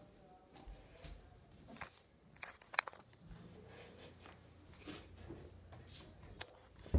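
Handling noise from a handheld phone: faint rustling and a few scattered clicks over quiet room tone, the sharpest click about three seconds in.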